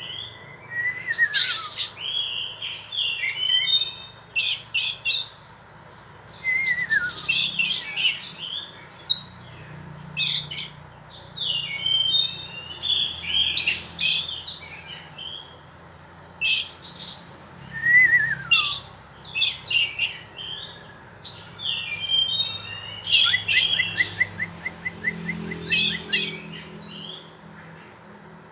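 Songbirds singing: bursts of rapid high chirps and warbled phrases, with a few clear falling whistles and, late on, a fast run of short evenly spaced notes.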